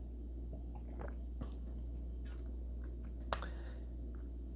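Faint mouth and lip sounds of someone tasting a drink, small wet clicks scattered over a steady low hum, with one sharper click a little over three seconds in.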